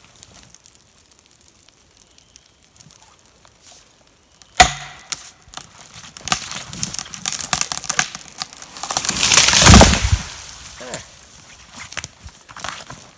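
A sharp blow on the felling wedge, then the tree cracking and snapping as it tips over, building to a loud crash of branches and trunk hitting the ground about nine to ten seconds in.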